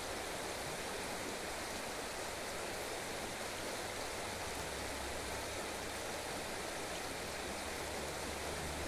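Steady rushing of the river Wupper flowing through the valley below the bridge. A low rumble starts to come in near the end.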